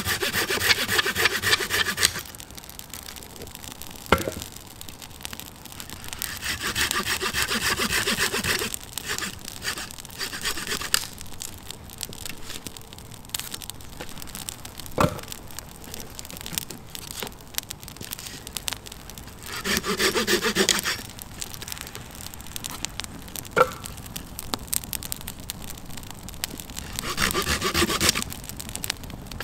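Hand saw cutting wood in four short bouts of quick back-and-forth strokes, each a second or two long, with a few single sharp snaps in between.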